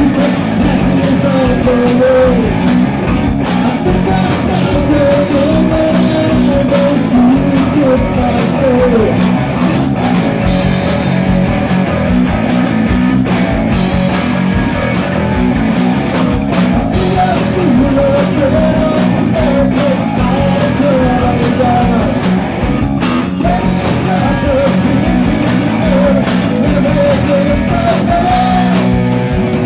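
A rock band playing a song live, a singer's voice over guitar-driven accompaniment.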